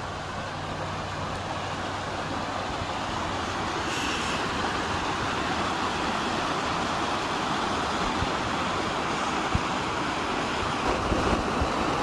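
Rushing creek water tumbling over rocks in small rapids: a steady, even rush that grows slightly louder. A few faint low thumps come near the end.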